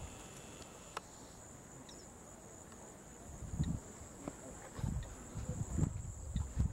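Steady high-pitched insect trilling, like crickets, with a few irregular low rumbles over it in the second half.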